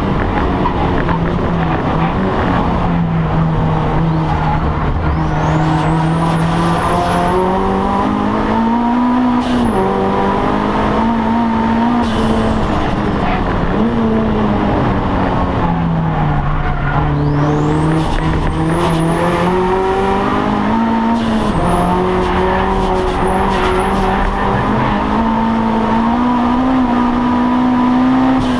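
Audi TT race car's engine heard from inside the cockpit, pulling hard and rising in pitch with sudden drops at gearchanges, easing off and picking up again through the corners. A high whine climbs and falls along with the revs.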